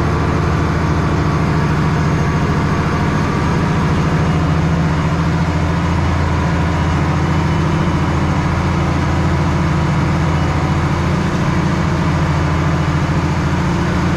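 International 1486 tractor's six-cylinder diesel running steadily under load, pulling a loaded grain cart while its tyres spin for grip.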